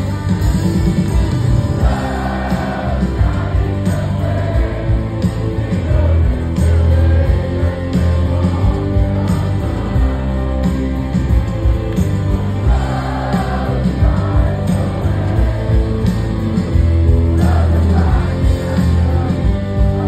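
Live rock band playing loud through a concert PA, heard from inside the crowd: electric guitar, bass and drums with singing over the top.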